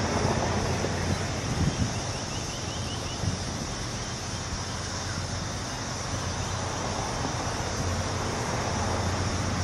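Low, steady drone of a diesel locomotive approaching from a distance, growing slightly louder toward the end, with wind rumbling on the microphone.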